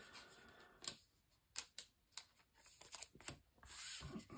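Faint handling sounds of Pokémon trading cards and booster packs: scattered light clicks and taps, then a short, soft rustle near the end.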